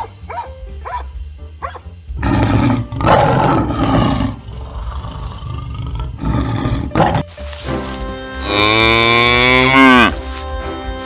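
Animal calls over background music: two rough, noisy bellowing calls, then a long, loud cow moo that drops in pitch at its end.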